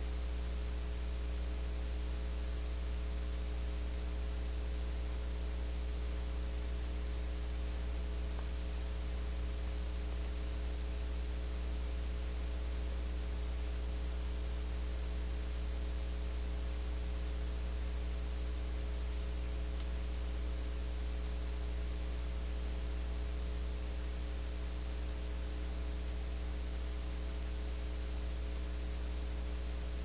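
Steady electrical mains hum with a constant hiss, picked up by the nest-box camera's microphone; no other sound stands out.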